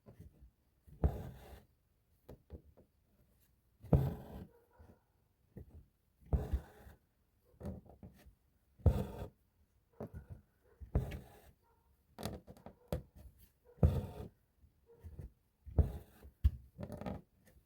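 Embroidery needle and thread pulled through fabric, stitch after stitch: a short rasping pull about every two and a half seconds, with small taps and scratches between.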